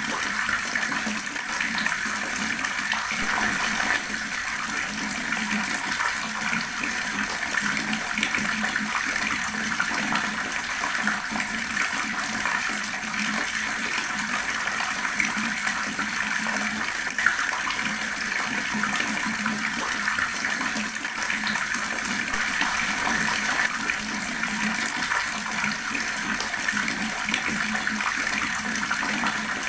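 Water running steadily from a tap and gurgling as it splashes down, unbroken throughout.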